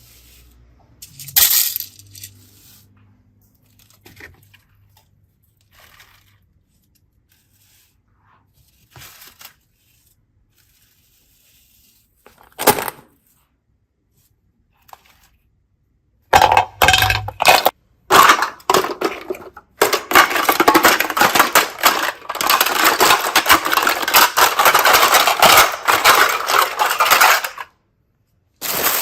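Hands handling small hard craft and slime-play objects: a few sharp, separate clinks and taps, then about ten seconds of dense crackling and rattling that stops shortly before the end.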